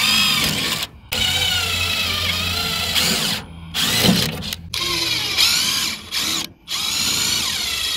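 Milwaukee M12 cordless drill boring small holes through a thin metal flange. It runs in about five short bursts with brief stops between them, with a high wavering whine as the bit cuts.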